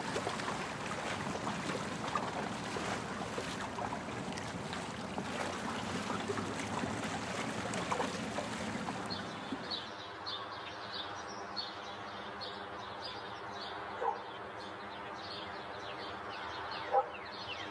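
Harbour ambience: a steady wash of water and wind noise. From about halfway a steady low hum sets in, with small birds chirping repeatedly over it.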